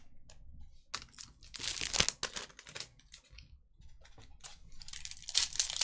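Trading cards being handled, with a run of light clicks and slaps as card edges are flicked through. Near the end comes a denser crinkling and tearing, like a foil card-pack wrapper being torn open.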